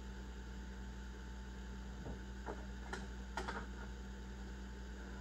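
Steady low electrical hum with four light clicks and taps of small parts or tools being handled, between about two and three and a half seconds in.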